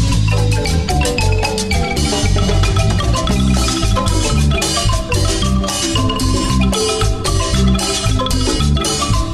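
Guatemalan marimba with hormigo-wood keys playing a cumbia, many quick mallet notes over a bass line and a steady percussion beat.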